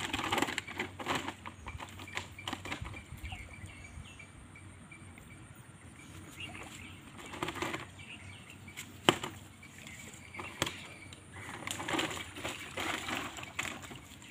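Intermittent rustling and handling noise in three bouts, with a sharp click about nine seconds in and another a second and a half later.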